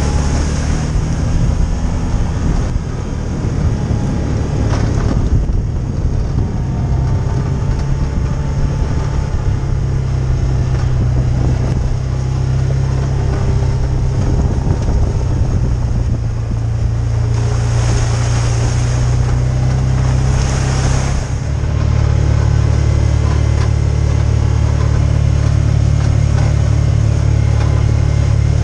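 Side-by-side UTV engine running steadily while driving, its note shifting and growing a little louder about three-quarters of the way through.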